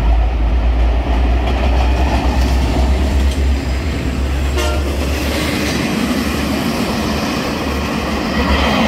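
A fast train passing close by, with a steady diesel locomotive rumble and the noise of rolling wheels on the rails.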